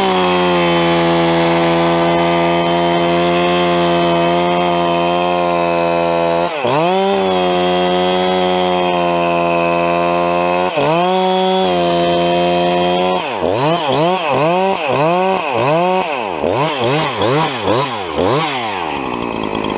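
Chainsaw running at full throttle while cutting the second angle of a directional notch, the engine note held steady and easing off briefly twice. Near the end it goes into a run of quick throttle blips before dropping back toward idle.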